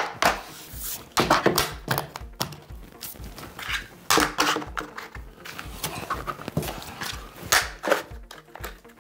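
Vinyl planks being handled and locked together: irregular sharp clicks and knocks of the click-lock edges and planks against each other, coming in clusters.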